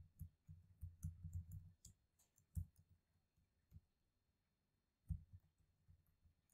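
Faint computer keyboard typing: a quick run of keystrokes in the first two seconds, then a few single key presses spaced a second or more apart.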